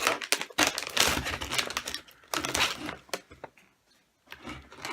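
Crinkling and crackling of a snack bag of coated peanuts being handled and opened, in two stretches of rapid clicks with a short pause between.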